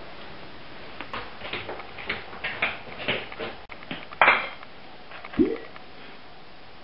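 A china mug and other crockery clinking and knocking on a kitchen counter in a quick irregular run, with a louder clatter just after four seconds in and a short low sound about a second later.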